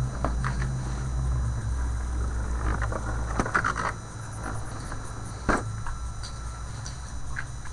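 Beyblade spinning tops battling in a plastic stadium: a steady low hum with a handful of sharp clicks as the tops strike each other. The hum drops away about halfway through.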